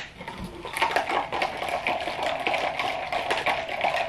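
Liquid poured over ice into a cup, a steady pour starting about a second in and running on for several seconds.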